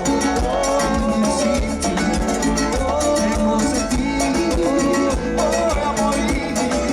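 Live Latin dance orchestra playing, with a steady beat under moving melodic lines.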